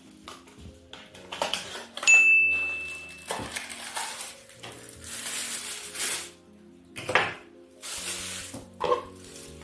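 Clinks and rustles of small metal parts being handled over background music, with one sharp metallic clink about two seconds in that rings briefly at a single high pitch.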